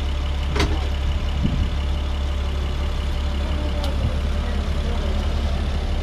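Parking-lot tram's engine idling steadily at a stop, a low rumble with a faint hum. A single sharp knock comes about half a second in, and a faint click about four seconds in.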